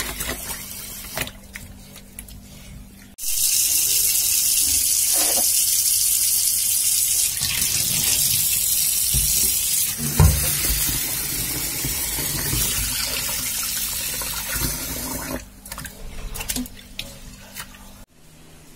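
A kitchen tap pours into a steel bowl of rice being washed. A steady rush of water comes on about three seconds in and stops a few seconds before the end; before and after it, hands swish and rub the rice in the water.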